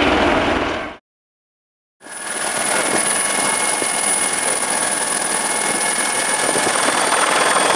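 Helicopter noise fades out about a second in and drops to dead silence for a second at an edit. Then comes a helicopter in flight heard from on board: steady rotor and engine noise with a thin, high, steady whine.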